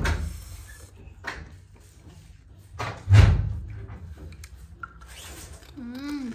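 Hand-eating noises as pork in gravy is picked from a glass bowl and chewed, with two heavy thumps: one at the start and a louder one about three seconds in. Near the end comes a short hummed 'mm' with a full mouth.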